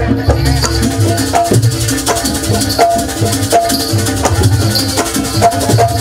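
Live jaranan music from a Javanese percussion ensemble: drums and struck metal percussion playing a fast, dense rhythm over a steady low tone.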